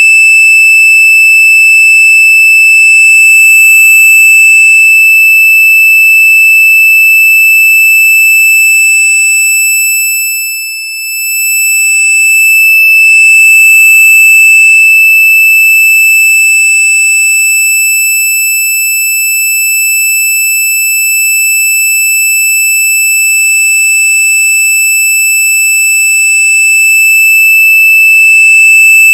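Very loud, high-pitched electronic tone held steadily, with fainter higher overtones above it; it briefly drops in loudness about eleven seconds in.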